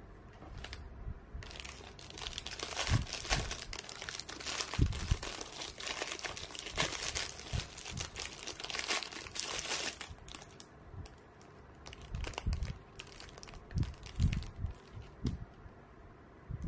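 Clear plastic packaging crinkling and crackling as it is unwrapped from a small metal piece. It crinkles densely for several seconds, then thins to scattered crackles with a few light knocks toward the end.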